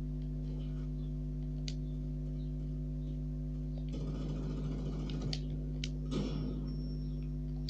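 A steady low electrical hum, with a few faint sharp clicks and a short rush of noise between about four and six seconds in.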